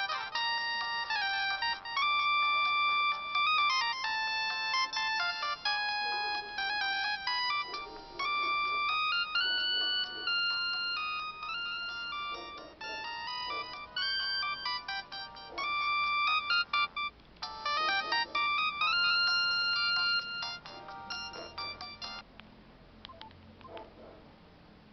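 LG A180 mobile phone playing a polyphonic ringtone, a melody of stepped electronic tones with a brief break in the middle, which stops about 22 seconds in. A few faint clicks follow.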